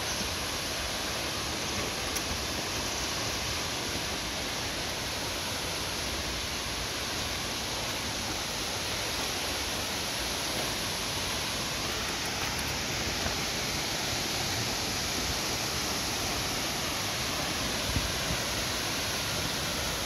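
Waterfall's falling water making a steady, even rush, with a faint knock about two seconds in and another near the end.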